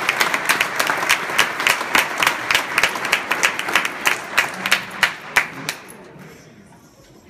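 Audience applauding, with many hands clapping, fading away about six seconds in.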